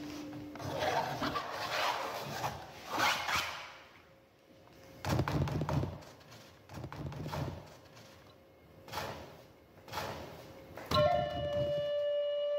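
Several irregular swishing, rustling bursts, each lasting up to about a second, then a single held flute-like note starts about eleven seconds in and sustains.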